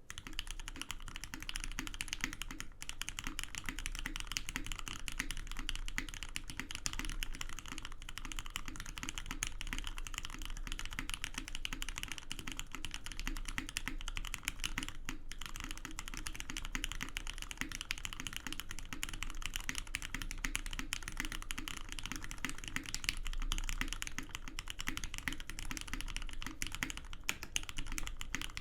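Continuous fast typing on a zekk.works Seulgi V2 custom mechanical keyboard with lubed Cherry MX Black linear switches on an aluminium plate and NCR SAU dye-sub keycaps: a dense, unbroken stream of key clacks with only a couple of brief pauses.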